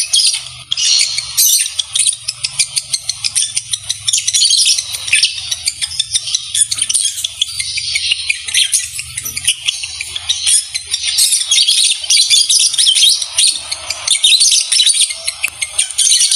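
Caged lovebirds chattering without pause, a dense stream of rapid high chirps and squeaks: the chatter of lovebirds in mating condition.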